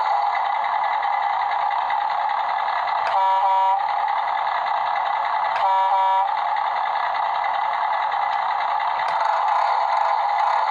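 Mattel Jurassic World Off-Road Rescue Rig toy truck's sound chip playing a recorded truck engine running through its small speaker. Two short horn honks come about three seconds in and again about two and a half seconds later.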